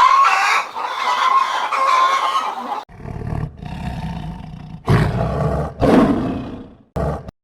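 Animal calls edited back to back: first a rooster crowing, one long high call lasting about three seconds. After a sudden cut come several deeper, rough calls from a larger animal.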